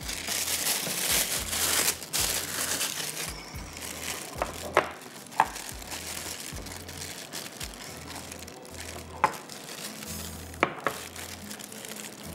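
Clear plastic piping bag crinkling as it is handled, for the first three seconds or so. Then a few sharp single taps of silicone spatulas against glass bowls as macaron batter is scraped and mixed.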